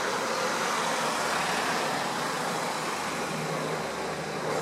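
Steady road traffic noise, with a faint low engine hum coming in a little past the middle.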